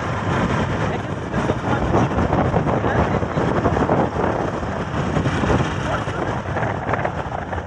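Motorcycle riding along a road: wind buffeting the microphone over the running engine, a continuous rough rush.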